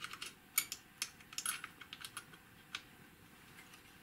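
A quick, irregular run of small clicks and taps, crowded in the first two seconds and thinning out after, as fingers handle the opened instrument's metal frame and plastic board connector.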